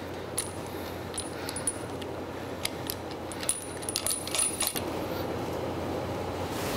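Small steel clicks and clinks as square-head bolts are handled and fitted into the side mounting holes of an anvil and its steel stand plate. Some strikes give a brief high metallic ring, and the clicks come thickest about three and a half to four and a half seconds in.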